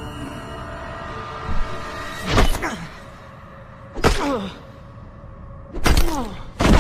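Four heavy blows of a crowbar striking a body, sudden hits about two seconds apart with the last two close together, over quiet dark background music.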